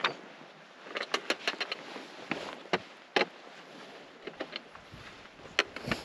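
A hiker's footsteps: a string of irregular, sharp clicks and scuffs, some in quick clusters with pauses between.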